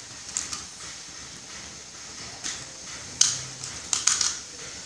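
Cables and plastic connectors being handled: a few short sharp clicks and rustles, bunched near the end, over a steady hiss.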